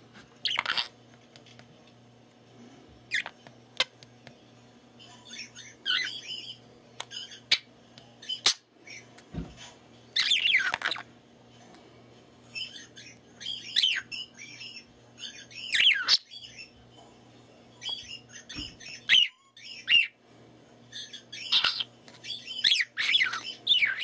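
Pet budgerigar chirping, warbling and squawking in short bursts every second or two, with several sharp squawks that fall in pitch.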